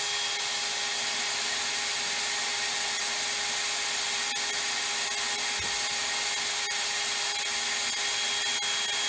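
Power drill running steadily under load, its bit boring out steel at a broken bracket mount on a combine's flex header: a constant motor whine over the grinding of the bit.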